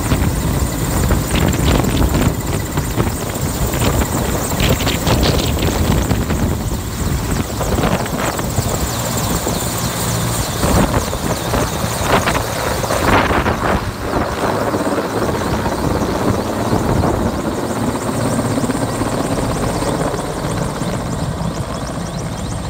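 Mil Mi-8-type transport helicopter's rotor and turbines running at close range as it lifts an underslung load on a long sling and flies off, the sound easing slightly near the end.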